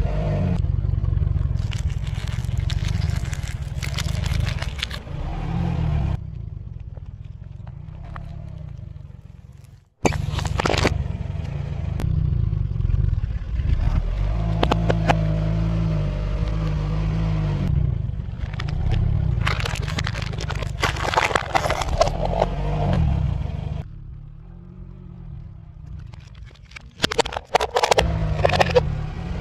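A car's engine runs with a low rumble as its tyre rolls slowly over a series of objects. Stacks of crackers crunch and crackle under the tyre. Near the end a small plastic toy bin cracks sharply several times.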